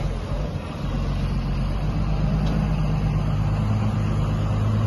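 Hydro extractor (centrifugal spin dryer) with a three-phase electric motor running, a steady low hum that grows louder about a second in.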